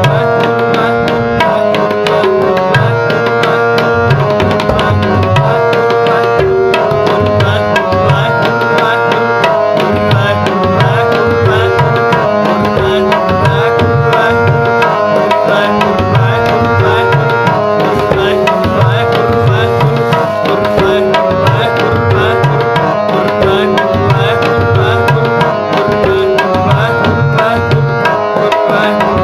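Sikh kirtan music: tabla drums playing a steady rhythm under held harmonium notes.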